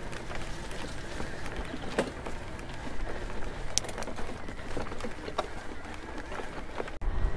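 Mountain bike riding over a rocky track: tyres crunching on stones, with scattered sharp clicks and knocks. A low rumble comes up near the end.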